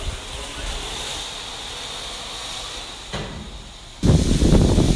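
Steam hissing steadily from jets venting low at the sides of a 116-year-old steam locomotive, typical of open cylinder drain cocks. About four seconds in, a sudden, much louder rough low rumble takes over.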